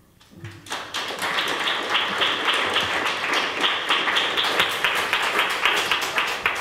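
Audience applauding, a dense run of many hands clapping that starts about a second in.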